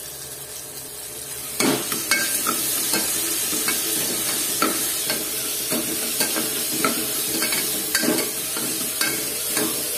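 Chopped onions and tomatoes sizzling in oil in an aluminium pressure cooker pot while a spoon stirs and scrapes them, with short irregular scrapes and knocks against the pot; the sizzle gets louder about a second and a half in.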